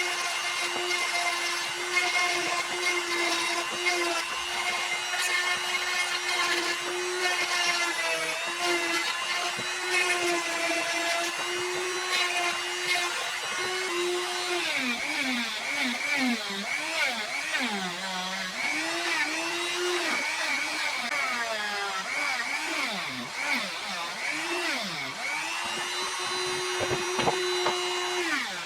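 Handheld electric power tool running at a steady high whine. From about halfway its pitch repeatedly sags and recovers as it is pressed into the work, then it runs steady again near the end.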